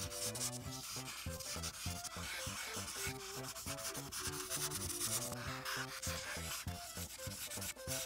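A coloring tool scratching back and forth on a coloring book page in quick, repeated strokes while the grass is filled in, with background music underneath.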